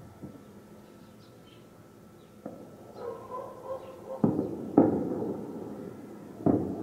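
Four sudden thumps or knocks, the loudest about two thirds of the way in, with a short run of repeated animal calls between them and faint high chirps like small birds.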